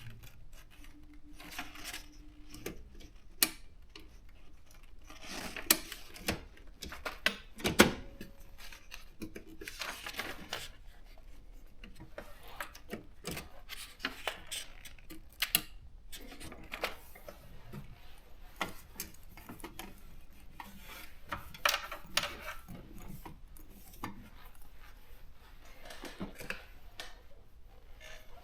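Brother JP 1 typewriter being typed on: a string of irregular key strikes and clacks, with a few louder knocks among them.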